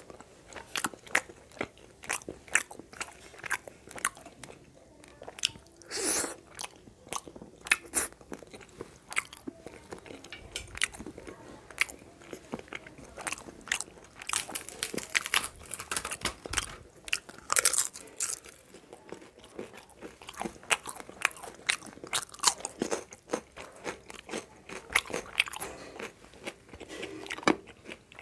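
Close-miked chewing with crisp, crunchy bites and wet mouth sounds: a person eating food by hand, mukbang-style. The crunches come irregularly, several a second, and are loudest around the middle.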